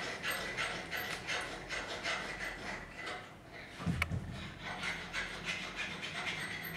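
Metal parts of a rotary hammer, its motor armature and gear housing, rubbing and rasping as they are worked together by hand, in a quick rhythm of about three strokes a second. A single knock comes about four seconds in.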